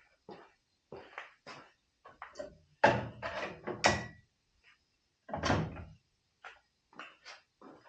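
A string of short clunks and knocks from tools being handled and set against a metal tool box, loudest in a cluster about three to four seconds in and again at about five and a half seconds.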